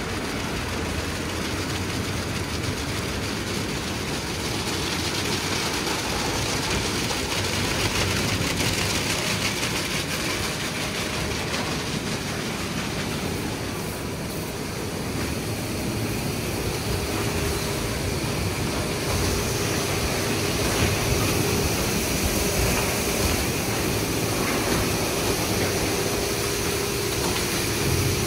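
Sonny's conveyorized car wash tunnel running: spinning soft-cloth brushes working over a foamed car, a steady, continuous machine-and-wash noise.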